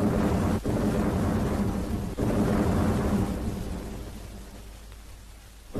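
Deep rumbling boom that sets in suddenly, rumbles on for about three seconds and slowly dies away; a second boom strikes sharply at the very end.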